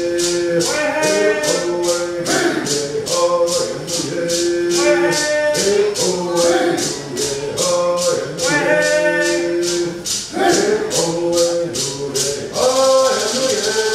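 Voices singing a Cherokee social dance song over a hand rattle shaken on a steady beat, about two shakes a second. Near the end the beat stops and gives way to a continuous rattling hiss while the singing goes on.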